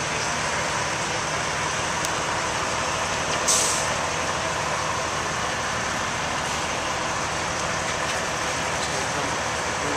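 Large truck engine idling steadily, with a short hiss of air about three and a half seconds in.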